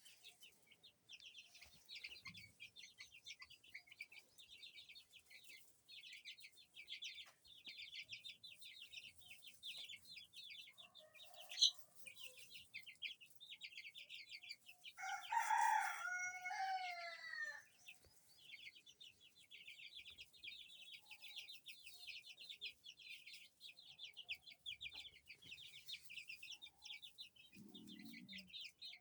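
Baby chicks peeping constantly in rapid high cheeps. About halfway through, a rooster crows once, the loudest sound, and a single sharp click comes a few seconds before the crow.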